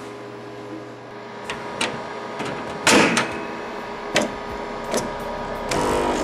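HP DraftPro pen plotter clicking and clunking as paper is loaded into it, over a steady hum: about eight sharp mechanical clicks and knocks, the loudest about halfway through. A short motor buzz starts near the end.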